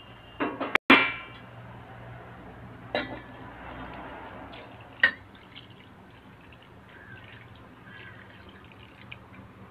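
Steel cookware clanging: a loud ringing metal clang about half a second in, then lighter knocks around three and five seconds, as a steel vessel is tipped to pour water into a steel kadai of curry.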